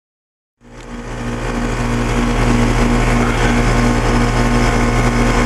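Trane XE1000 5-ton heat pump outdoor unit running in heating mode: the steady hum of its reciprocating compressor under the whoosh of the condenser fan, its coil heavily frozen. The sound comes in from silence about half a second in and swells over the next second or so.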